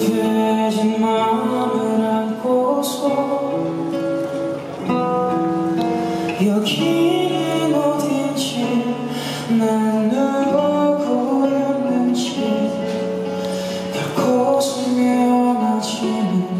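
A man singing a song live into a handheld microphone with long held notes, accompanied by a plucked acoustic guitar.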